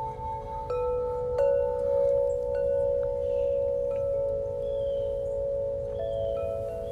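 Ringing chime tones: a few notes struck at intervals over long held tones, with short high chirping glides in the second half.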